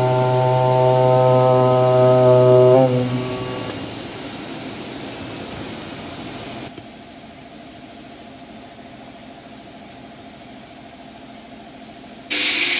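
CNC oscillating knife cutting machine running with a steady pitched buzz, which dips and winds down about three seconds in. A fainter machine hiss carries on and drops again about seven seconds in, and a sudden loud hiss starts near the end.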